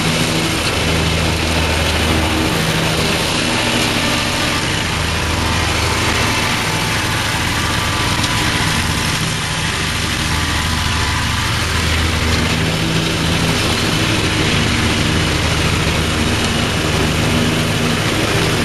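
Scag Cheetah zero-turn commercial mower running steadily while cutting tall thick grass. Its engine sound weakens for a few seconds around the middle as the mower moves away, then grows again as it comes back.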